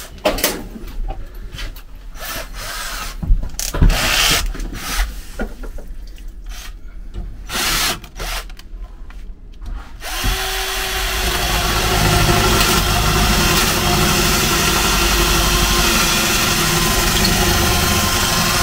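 Knocks and clatter of tools and parts being handled. About ten seconds in, a power drill spins up and runs steadily, drilling out seized screws.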